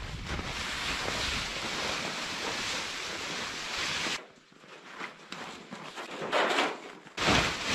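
A large nylon tarp rustling and scraping as it is pulled down off a shelter, a steady rushing noise. It drops off sharply about four seconds in and comes back as irregular rushing surges that are loudest near the end.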